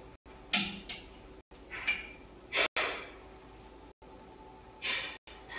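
Short scratching and light knocking sounds of paper and drawing things being handled on a table: about half a dozen separate strokes, the loudest about half a second in.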